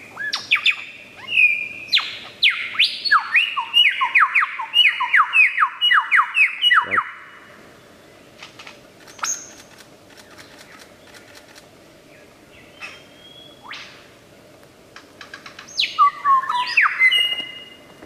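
Lyrebird singing: a fast run of loud whistled notes, many falling sharply in pitch, two or three a second. Then a few scattered faint notes, and another quick burst of calls near the end.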